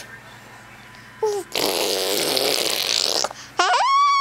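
Fart-like raspberry noises. A short falling squeak is followed by a long, noisy blast of nearly two seconds, and near the end comes a loud whistle-like call that rises and then holds steady.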